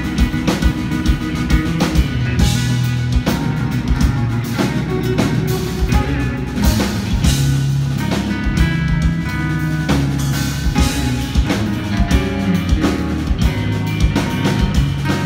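Instrumental progressive metal played live at full volume: two electric guitars over a busy drum kit, with no vocals.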